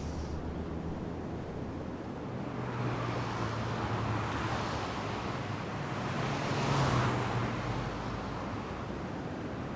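Car traffic on a street: a steady hum of tyres and engines, swelling as vehicles pass about four and seven seconds in.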